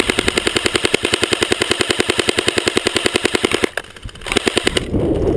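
Airsoft gun firing on full auto: a long burst of rapid, evenly spaced shots lasting more than three seconds, then a short pause and a brief second burst.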